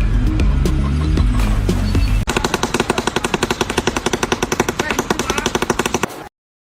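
Background music, then a rapid, even train of sharp impacts, about a dozen a second, for about four seconds, cutting off suddenly.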